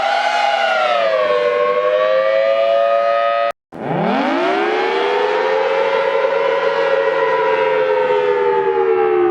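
Thunderbolt 1000T mechanical tornado siren wailing, in edited variations. A steady wail sags slightly in pitch and cuts off abruptly about three and a half seconds in. The siren then winds up again, rising and holding a high wail that dips slightly near the end.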